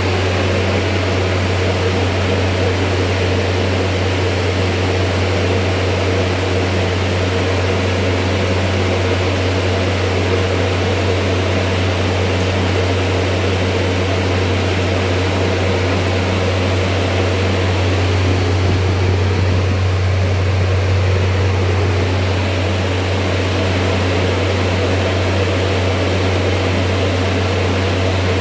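Carrier Xarios 500 transport refrigeration unit running steadily after repair: an even hum with a strong low drone and a hiss of moving air, with no change in speed.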